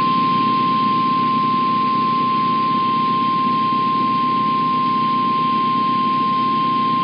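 NOAA Weather Radio warning alarm tone: a single steady 1050 Hz tone held without a break over radio hiss. It signals that a warning broadcast is about to follow.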